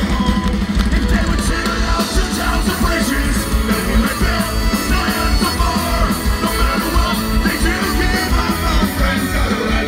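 Live rock band playing loud on stage, with electric and acoustic guitars, bass, fiddle and drums and a singer's voice over them; the drums settle into a fast steady beat about two seconds in.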